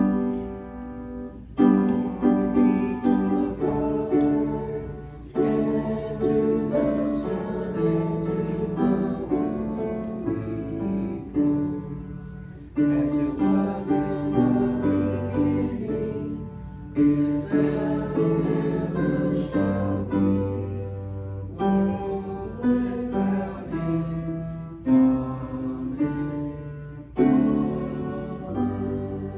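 Piano playing a slow hymn in chords, phrase after phrase, each chord struck and left to fade.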